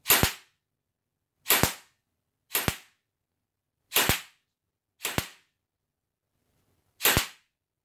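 Airsoft rifle firing six single shots at uneven intervals, each one short and sharp, with about one to two seconds between most of them.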